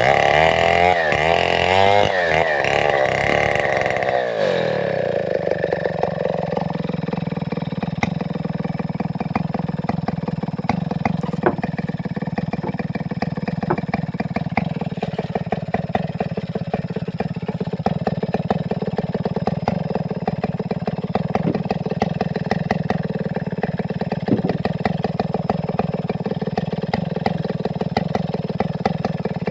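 Large two-stroke Stihl 070-pattern chainsaw engine, its revs swinging rapidly up and down for the first few seconds. It then drops to a steady idle about four and a half seconds in and stays there.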